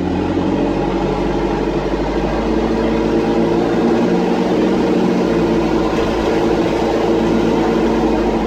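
Dennis Dart SLF bus engine running hard under load, heard from inside the passenger saloon: a loud, steady drone through a blown exhaust.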